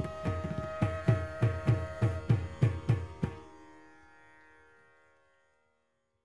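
Carnatic ensemble finishing a piece: bamboo flute and violin hold a long note while the mridangam plays a closing run of strokes, about three a second, that stops about three seconds in. The instruments then ring on briefly and fade to silence.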